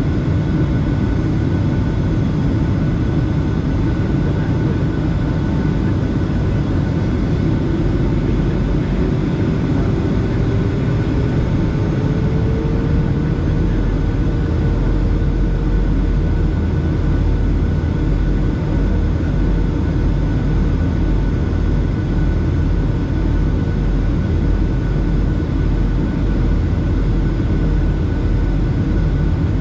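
Boeing 757 cabin noise heard from a window seat by the engine: steady rumble of engines and rushing air. A whine rises in pitch from about a third of the way in, then holds steady.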